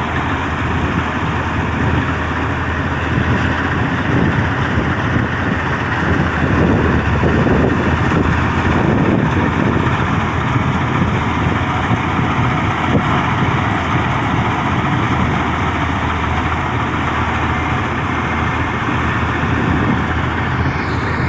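Combine harvester running: a steady, unbroken engine and machinery drone.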